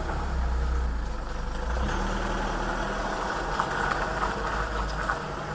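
Mitsubishi L200 pickup's 2.3-litre diesel engine pulling away past, a low drone with road noise that eases off slightly as the truck drives away.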